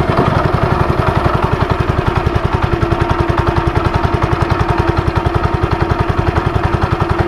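Small fishing boat's motor running steadily with a fast, even throb; a steady hum joins in about three seconds in.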